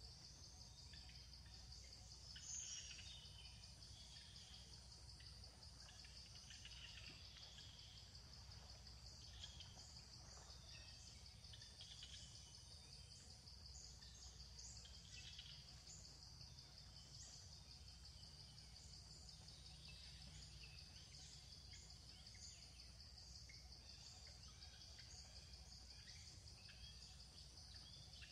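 Faint outdoor ambience: a steady, high, pulsing insect trill with scattered short bird chirps over a low background hum.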